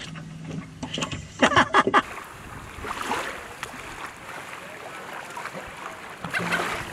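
Small waves washing onto a sandy shore with some wind, as a steady even noise; a few sharp, close noises come just before it, and music comes in near the end.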